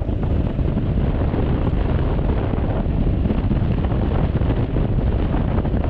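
Steady wind rush on the microphone from riding a Honda Forza 350 scooter at road speed, with the scooter's engine running underneath.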